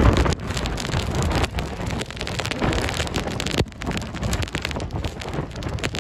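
Strong tropical-storm wind gusting and buffeting the microphone, with rain falling.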